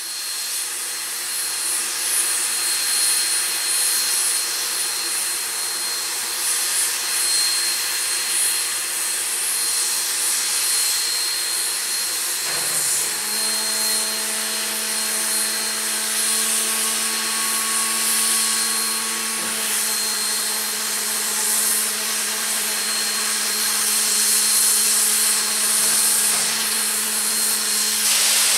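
Western Maryland Shay No. 6, a three-truck geared steam locomotive, standing with steam hissing steadily. A steady low hum joins the hiss about halfway through.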